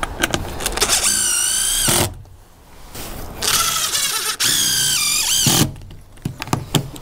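DeWalt cordless drill driving screws into roof timber, its motor whining in two runs: a short one about a second in and a longer one from about halfway, the pitch wavering as the screw bites. A few sharp clicks come before the first run.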